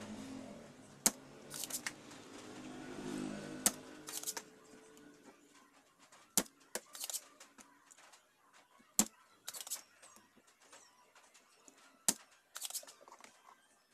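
Sharp clicks about every three seconds, each followed a moment later by a short hiss, from desoldering work as a 4558D op-amp chip is removed from a sound box's preamp board.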